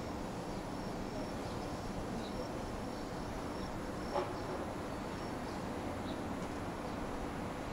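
Outdoor evening ambience: a steady low background rumble with insects chirping in short, repeated high notes, and a brief click about four seconds in.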